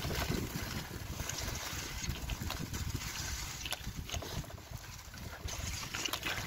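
Bicycle tyres rolling through wet slush and mud, a steady low rumble with scattered sharp clicks and splashes.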